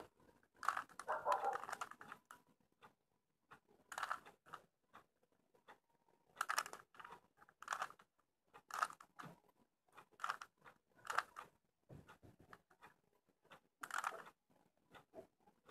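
Rubik's Cube layers being turned by hand: short bursts of plastic clicking and rattling, a second or two apart, with brief pauses between.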